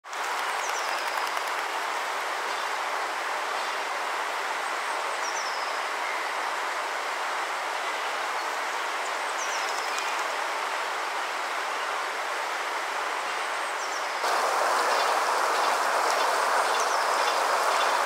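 Steady rushing of a waterfall, which becomes louder about fourteen seconds in. A small bird gives a faint, short, high call that falls in pitch, about every four seconds.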